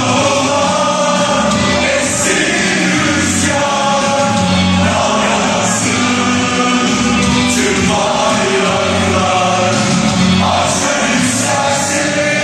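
Loud music with many voices singing together over a repeating low beat.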